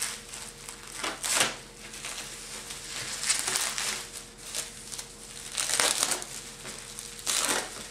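Plastic bubble-wrap packaging crinkling and crackling in several short bursts as it is pulled and cut away from a box.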